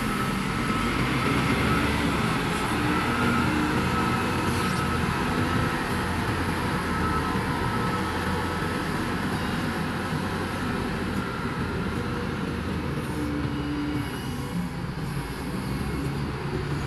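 Diesel engines of several wheel loaders running steadily while the machines work loose sand.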